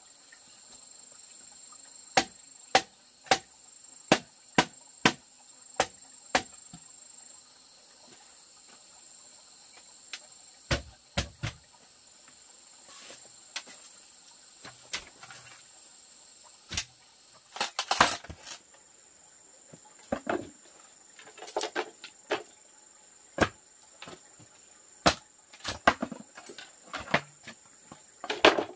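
Sharp knocks of bamboo being struck, about two a second for a few seconds, then scattered knocks and clatter of bamboo poles, and near the end a run of machete strikes on a bamboo tube. Insects keep up a steady high buzz underneath.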